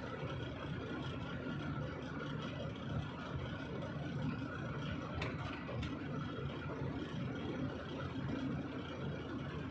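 A vehicle engine running steadily at a low, even level, with a couple of faint clicks about halfway through.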